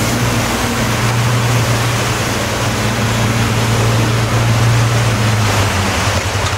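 Large diesel truck's engine pulling with a steady low drone as its wheels churn through deep mud, under a loud rushing noise; the drone eases a little before the end.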